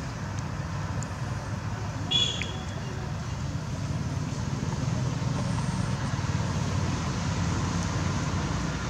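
Steady low rumble of road traffic. A single short, high-pitched squeak comes about two seconds in.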